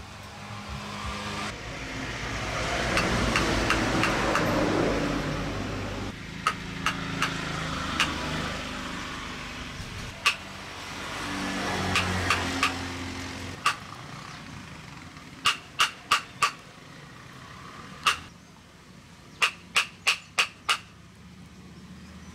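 A wooden mallet taps a chisel cutting into soft wood: sharp knocks, mostly in quick runs of three to five, spread through the second two-thirds. A motor vehicle passes twice in the background, swelling and fading, in the first half.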